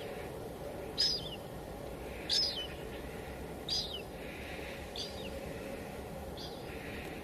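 A bird calling over a steady hiss of light rain: six short, high calls with a falling tail, one about every second and a quarter, growing fainter toward the end.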